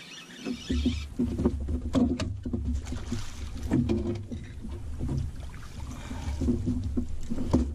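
Knocks and thumps against an aluminum jon boat's hull as an angler shifts about and nets a hooked bass, over a steady low rumble.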